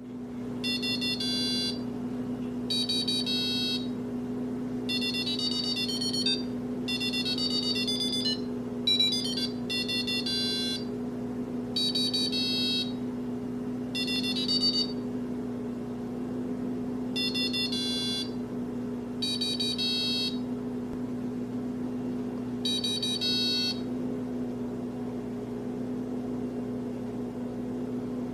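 Electronic alarm clock's buzzer sounding its alarm: shrill electronic beep bursts about a second long, repeating every couple of seconds over a steady low hum, pausing for a few seconds near the end.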